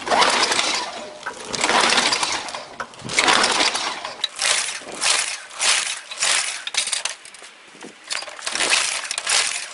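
Recoil starter of a Toro push mower's Tecumseh engine pulled again and again, a rasping whirr with each pull. The engine cranks without catching, which the owner puts down to old gas and a primer that isn't filling.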